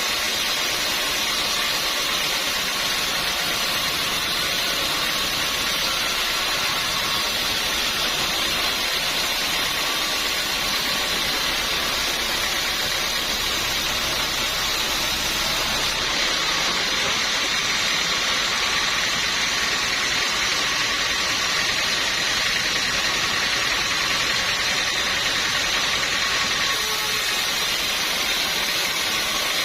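Sawmill machinery running steadily, a constant mechanical noise with a steady high whine and no distinct cuts or knocks.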